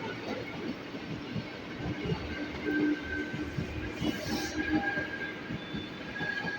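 Tokyu 8500 series electric commuter train moving through the station, its wheels clattering in a dense run of clicks over rail joints, with a steady low tone and a thin higher tone from the train alongside.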